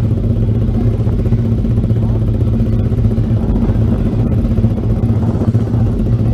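150 cc single-cylinder motorcycle engine running at a steady speed while being ridden, with wind noise over the microphone.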